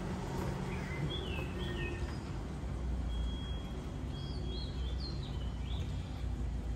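Birds chirping: a few short notes that rise and fall, a brief steady whistled note, then a quick run of chirps, over a steady low outdoor rumble.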